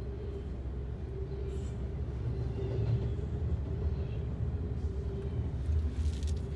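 Double-stack intermodal freight train rolling past a grade crossing, a steady low rumble heard through the closed windows of a car.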